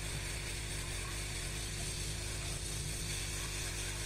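Hot-air rework gun blowing steadily while reflowing solder to fit a replacement MOSFET on a motherboard: an even airy hiss over a low, constant hum.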